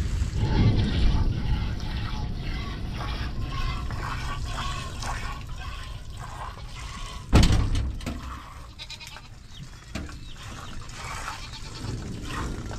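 A goat being hand-milked: quick short squirts of milk hissing into a metal bowl, in a steady rhythm. About seven seconds in there is a single loud thump.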